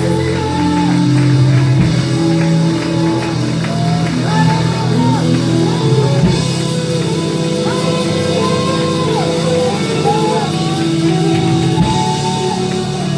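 Live gospel praise and worship music: a band playing held chords, with voices singing and calling out over it in a large hall.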